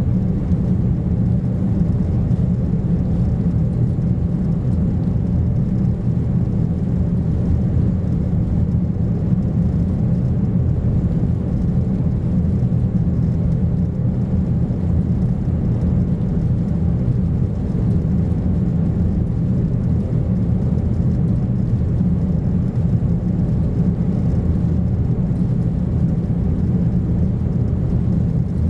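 Steady low drone in the passenger cabin of a Boeing Jetfoil high-speed ferry cruising, from its gas-turbine engines and water jets.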